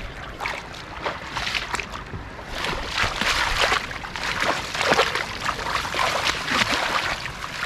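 Shallow floodwater splashing and sloshing as hands sweep and scoop through it, in irregular splashes that grow busier and louder from about two and a half seconds in.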